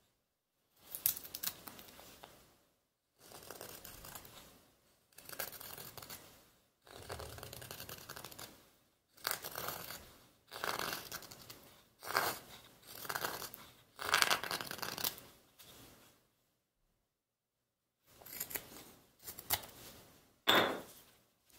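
Kiridashi carving knife with a 52100 steel blade shaving curls off a small stick of wood. There are about a dozen separate scraping cuts, each starting sharply and fading, with a short pause about three-quarters of the way through.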